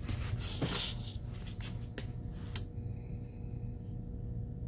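Foil-tape-covered PVC sign board slid and turned on a tabletop: rubbing and scraping with a few light knocks, stopping after about two and a half seconds. A steady low hum runs underneath.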